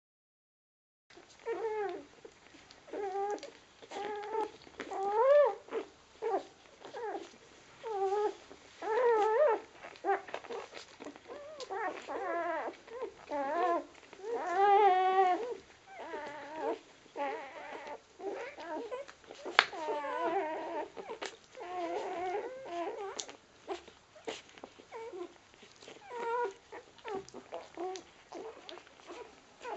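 Newborn rough collie puppies whimpering and squeaking while suckling. They give a string of short, high, wavering whines, about one to two a second, that start about a second in. A single sharp click comes about two-thirds of the way through.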